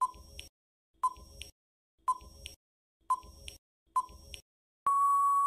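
Quiz countdown-timer sound effect: five short beeps about one a second, then one longer steady beep near the end as the count runs out.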